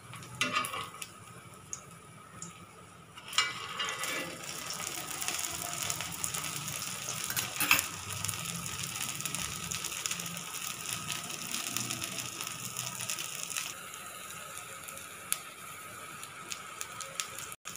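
Sweet corn tikki shallow-frying in hot oil on a flat tawa, the oil sizzling and crackling with fine rapid ticks. The sizzle is quieter at first and grows louder about three seconds in, then runs on steadily; a couple of metal clicks from the spatula and spoon sound about half a second in.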